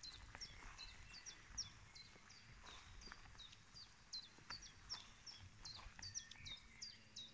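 Faint, continuous chirping of small birds: short high notes that slide downward, about three or four a second, with light low thumps and rustling from footsteps through tall grass underneath.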